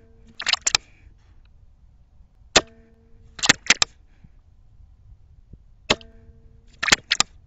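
An Avenge-X .25 PCP air rifle with a moderator fires twice, each shot a sharp crack with a short ring. Just under a second after each shot, the action clicks and clatters three or four times as it is cycled for the next pellet. A similar click run comes right at the start, after a shot just before. The rifle is still on its untuned factory settings.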